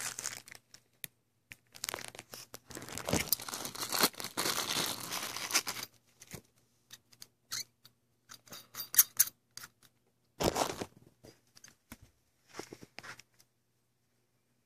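Clear plastic bags rustling and crinkling as speaker parts are pulled out of them: a long spell of crinkling in the first half, then scattered small clicks and taps, and another short burst of rustling later.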